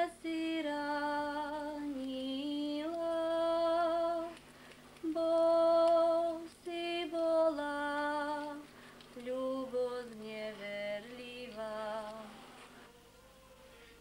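A woman singing a Slovak folk song alone, without accompaniment, in slow, long-held notes with a light vibrato; the song ends about twelve and a half seconds in.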